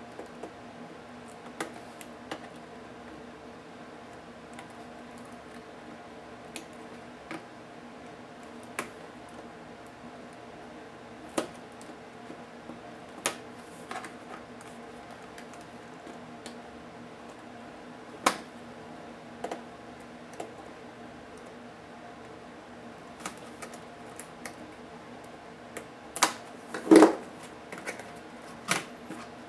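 Sharp plastic clicks and snaps as an Acer Aspire One netbook's keyboard is pried up out of its latches and lifted out, spaced a few seconds apart, with a louder clatter near the end as the keyboard is laid over onto the palm rest. A steady low hum runs underneath.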